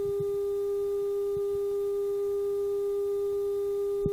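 A steady, unwavering electronic tone with a couple of fainter overtones above it, and a sharp click near the end.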